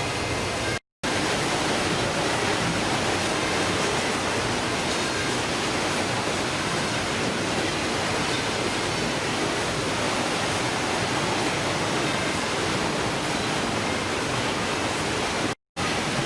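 Steady rushing noise, even across all pitches, broken by two brief complete dropouts: one about a second in and one near the end.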